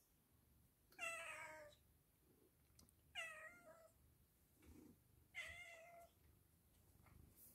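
A domestic cat meowing three times, about two seconds apart, each meow short and falling in pitch.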